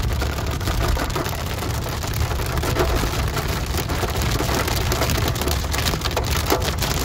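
Hailstones and rain pelting the car's windscreen and roof, heard from inside the cabin as a dense patter of sharp ticks over the low rumble of the car driving on a wet motorway.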